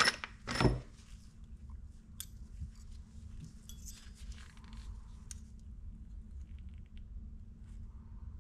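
Small metal tools and hardware clinking and rattling as they are handled on a bench, with two louder bursts of handling noise in the first second, then scattered soft clicks.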